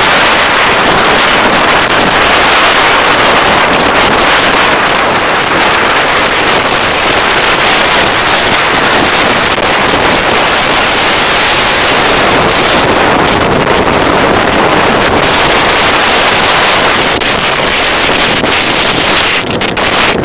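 Loud, steady rush of wind over a helmet-mounted camera microphone on a motorcycle moving at road speed, with no clear engine note above it.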